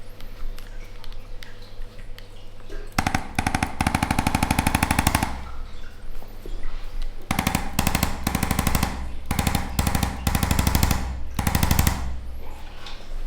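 Electric percussion massager hammering in rapid, even pulses, in short bursts that start and stop several times: one of about two seconds, then a run of shorter ones.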